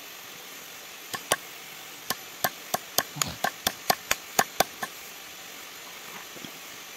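A hand hammer tapping a bearing down onto the steel shaft of a Kubota harvester track roller: about fifteen quick metal-on-metal taps over some four seconds, each with a short ring, the taps coming faster toward the end.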